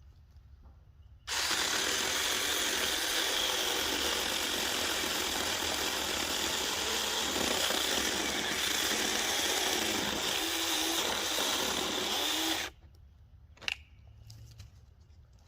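Saker Mini battery-powered handheld chainsaw with a 4-inch bar, running in one long burst of about eleven seconds that starts suddenly about a second in and stops abruptly near the end. A couple of sharp clicks follow.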